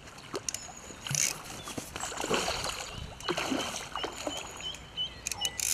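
Hooked carp splashing and thrashing at the surface of the water as it is played in close to the bank, in irregular bursts.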